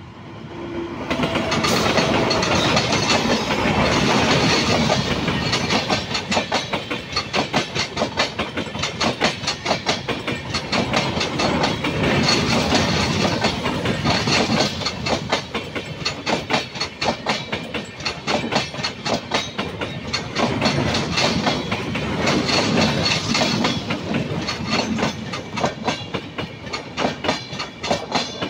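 Freight train passing at speed, its wheels clattering rapidly over the rail joints. The noise builds up over the first couple of seconds, then runs on with a steady, fast clatter that swells and eases in waves as the wagons go by.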